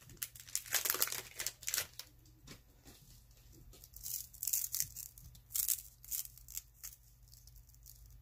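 A 1992 Fleer Ultra Series 2 baseball card pack wrapper being torn open and crinkled: a dense run of crackles over the first two seconds, then sparser crinkles about four to six seconds in.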